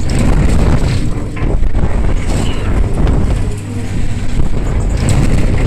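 Heavy wind buffeting the microphone on a moving fairground ride, over the rumble of the ride's motion, with scattered clicks and knocks.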